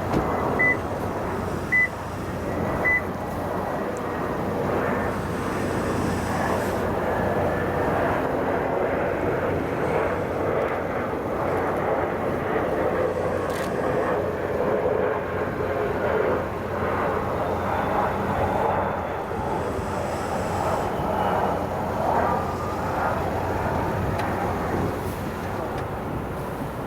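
Airbus A350's Rolls-Royce Trent XWB engines running at low power with the cabin air conditioning, a steady rushing noise heard from inside the cabin. Three short high beeps sound in the first three seconds.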